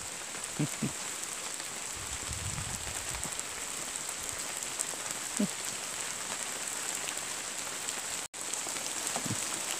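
Steady rain falling, an even hiss, with the sound cutting out for an instant about eight seconds in.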